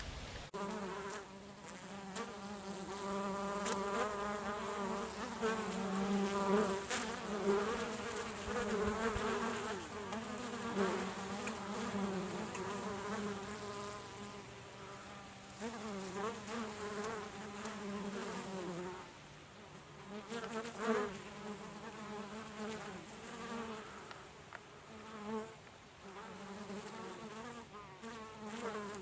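Honeybees buzzing in flight close by: several overlapping wingbeat hums that waver up and down in pitch. The buzzing gets quieter about two-thirds of the way through.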